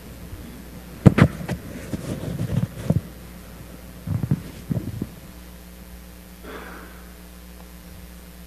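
Several sharp knocks and dull thuds with some rustling, the sounds of a person walking over to a wooden chair and sitting down in it, all over a steady low electrical hum.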